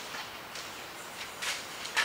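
Quiet workshop room tone with a few faint, light clicks in the second half, like small tools being picked up from a workbench.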